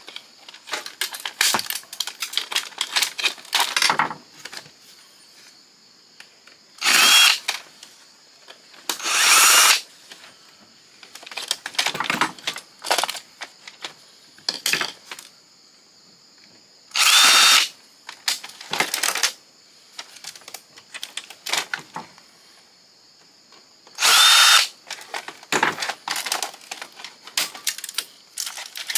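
Cordless drill-driver running in four short bursts of about a second each, taking screws out of the fax machine, with clicks and clatter of small plastic and metal parts being handled between the bursts.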